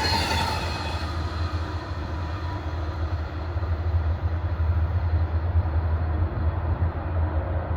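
Passenger train rolling by on the rails: a steady low rumble of wheels on track, with the higher rattle dying away as it recedes.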